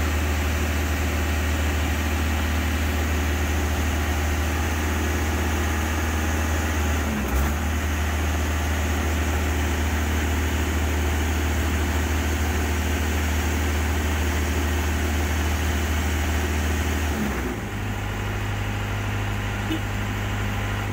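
Genie S-85 boom lift's engine running steadily while the boom is lowered, with one brief knock about seven seconds in. Near the end the engine note shifts and the sound drops a little.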